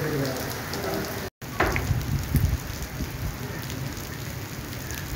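Steady rain falling on a wet concrete platform, a hiss full of fine drop ticks, with faint voices in the first second. The sound drops out briefly about a second in; a short falling tone and a few low thumps follow.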